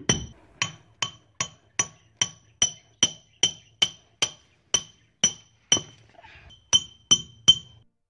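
Hammer driving a nail with steady blows, about two and a half a second, each with a short metallic ring. There is a brief pause about six seconds in, then three more blows.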